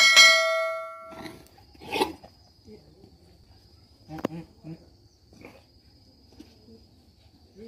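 A bell chime sound effect rings out at the start and dies away within about a second. It is followed by a steady, high-pitched insect drone with a few soft knocks and scuffles.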